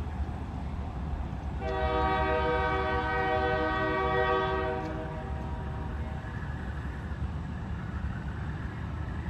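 Union Pacific 5662 freight locomotive's air horn sounding one long blast, starting about a second and a half in and fading after about three seconds, over the steady rumble of the passing train.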